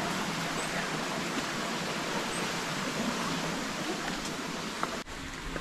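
Steady rushing of a rocky jungle stream, with a few faint clicks over it. About five seconds in the rushing drops off abruptly and turns quieter.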